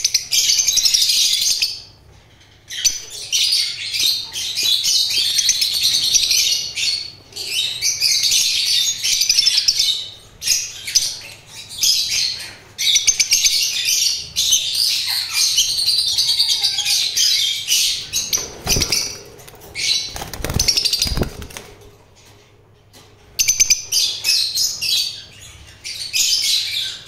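Caged albino parrots chattering shrilly in long bursts of rapid calls, with short pauses between bursts and a few low thumps about two-thirds of the way through.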